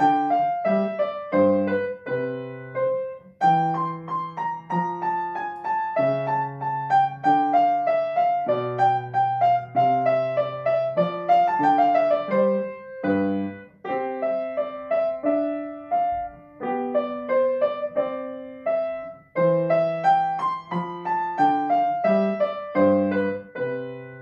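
Grand piano played solo: a melody over bass notes in short phrases with brief pauses between them, the opening phrase coming round again a few seconds before the end.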